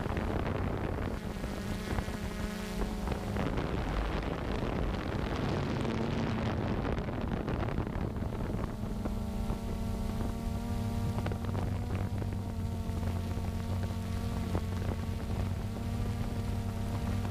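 Drone's electric motors and propellers humming steadily, heard from on board, with wind rushing over the microphone. Through the middle a rushing wind sound covers the hum, and from about nine seconds in the hum settles steady again.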